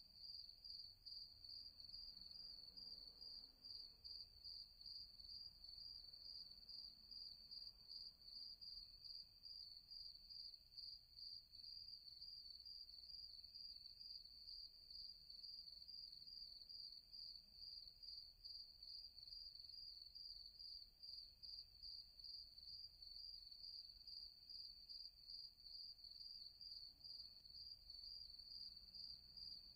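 Crickets chirping faintly: a high-pitched, evenly pulsing trill that goes on steadily without a break.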